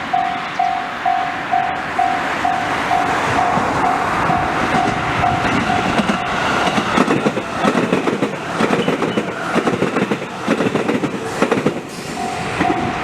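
A Japanese level-crossing warning bell rings about twice a second over the noise of an approaching train. From about seven seconds in, the rapid clatter of the train's wheels over the rail joints takes over as it passes, and the bell is heard again near the end.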